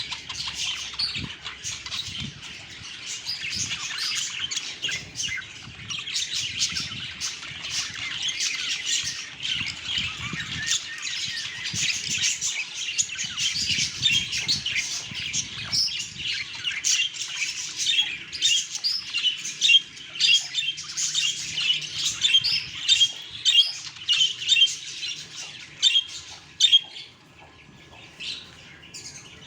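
Budgerigars chattering and chirping in a dense, continuous stream. Louder, sharper chirps stand out in the second half, and the calling thins out near the end.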